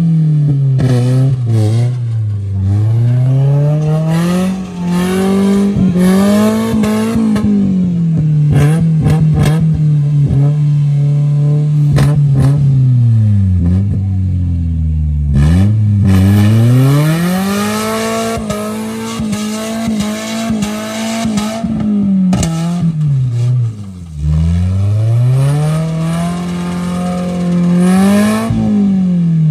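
Off-road 4x4 engine revving up and down over and over, its pitch climbing and dropping every few seconds as it is worked hard. Scattered knocks and clatter come in among the revs, most of them a third of the way in.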